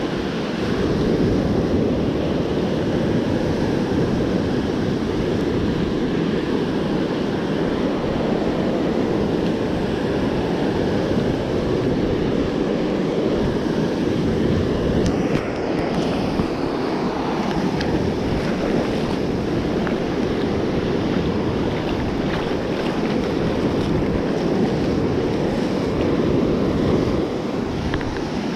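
Ocean surf washing up the beach, with wind buffeting the microphone in a steady low rumble.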